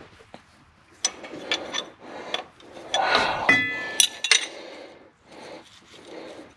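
Metal hand tools clinking and scraping against fuel line fittings on a diesel engine, with several sharp clicks and a brief metallic ring about three and a half seconds in.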